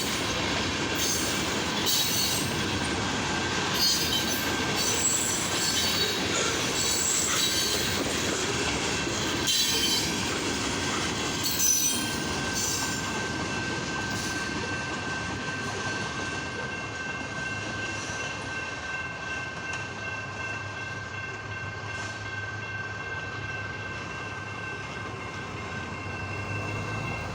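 Freight train cars rolling past, with wheels clicking over the rail joints and squealing on the rails. The clicking dies away about halfway through, leaving a quieter steady rolling sound with a thin, held squeal.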